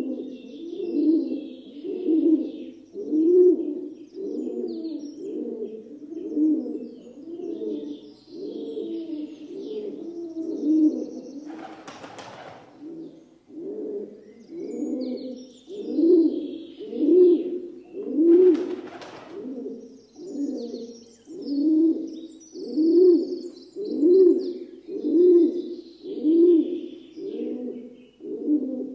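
Rock dove cooing, a low rising-and-falling coo about once a second, over and over. Faint high chirps of smaller birds sound behind it, and twice in the middle there is a short rushing noise.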